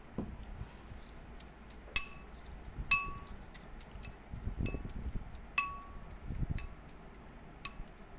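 Metal spoon clinking against a glass bowl while stirring soaked glutinous rice in butterfly pea juice. There are about six ringing clinks, the loudest about two, three and five and a half seconds in, with soft wet stirring between them.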